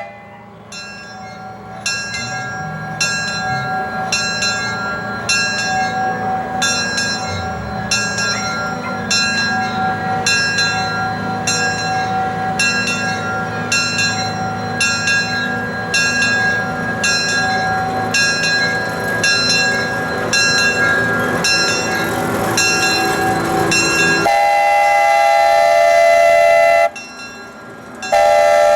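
Small 0-4-0 steam locomotive working with a steady exhaust chuff, a little over one beat a second, and a bell ringing. Near the end its whistle gives a long loud blast, then a short break, then sounds again.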